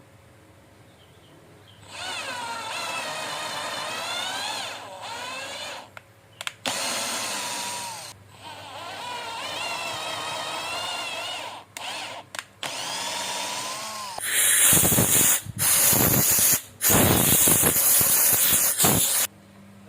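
Electric motor whining in several bursts, its pitch rising and falling as speed and load change. About fourteen seconds in, a louder, harsh grinding noise takes over in several bursts.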